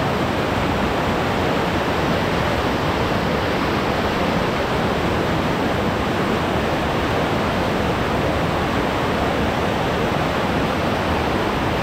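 River water rushing steadily, an even, unbroken roar of flowing water.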